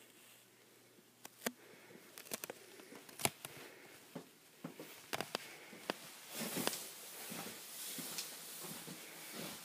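Footsteps going down a flight of indoor stairs, heard as scattered sharp knocks and clicks, with handling noise from a handheld camera and a rustling hiss from about six seconds in.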